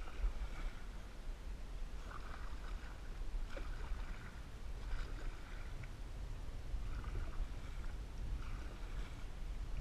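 Canoe paddle strokes, the blade dipping and pulling through lake water with a short splash about every one and a half seconds, over a steady low rumble.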